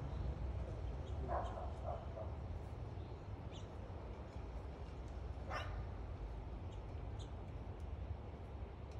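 A dog barking a few short times, about a second in and again near the middle, over faint scattered bird chirps and a steady low rumble.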